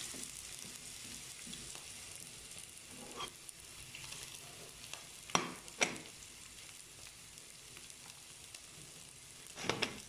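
Chopped onion and garlic frying in olive oil in a pan, a faint steady sizzle, with a few sharp clicks about halfway through and again near the end.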